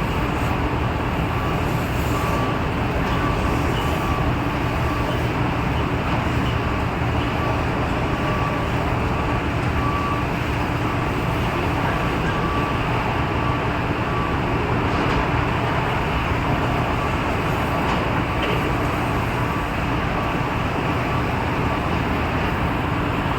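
Steady loud industrial roar of furnace and foundry machinery, with a faint high beep repeating on and off in the background.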